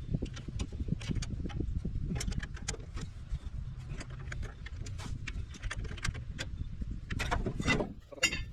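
Irregular metallic clicks and clinks of hand tools working on a woodchipper's belt as it is tightened, over a steady low rumble, with a quick cluster of clicks near the end.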